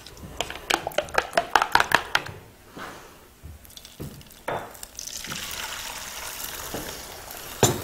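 Beaten eggs whisked in a bowl, the utensil clicking quickly against the bowl for about two seconds, then the egg poured into a hot frying pan and sizzling steadily from about five seconds in.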